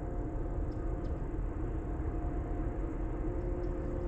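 Steady low rumble and hum with a few faint steady tones, as of a vehicle engine running.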